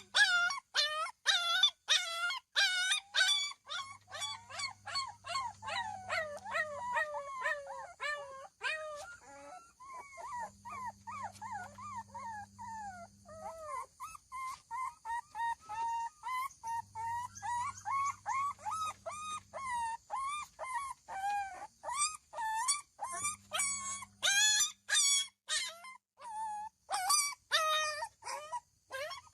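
Dogs barking and yelping in rapid, high-pitched yaps, about three a second, with short whining calls between them.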